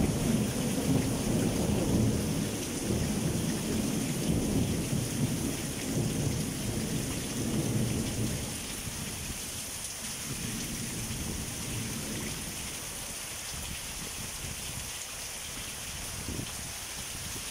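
Thunder rumbling and dying away over the first several seconds, over steady rain that carries on alone afterwards.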